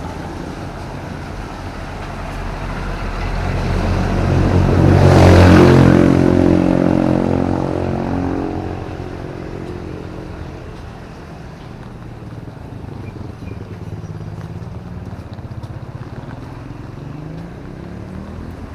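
A motor vehicle passing close by on a wet road: engine note and tyre hiss rise to a peak about five seconds in, then fade away over the next few seconds.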